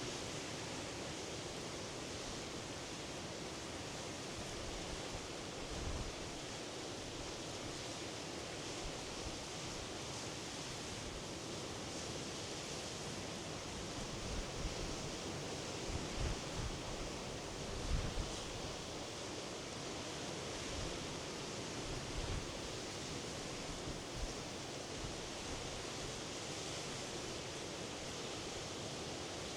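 Sea surf washing steadily on the shore. Several brief low thumps come in the middle part.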